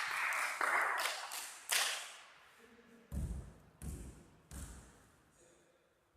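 About two seconds of loud, even noise, then a basketball bouncing three times on the hall floor, each bounce a low thud.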